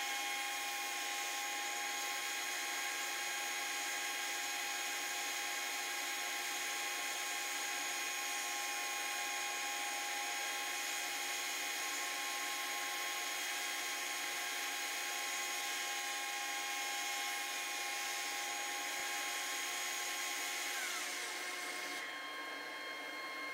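Shopsmith headstock motor driving the jointer's cutterhead, a steady whine with several steady tones. About three-quarters of the way through, the pitch falls and it gets quieter as the machine is switched off and winds down.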